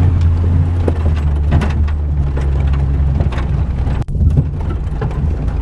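Vehicle engine running steadily at low speed, with a low drone and a few sharp clunks and rattles from the body as it rolls over rough ground.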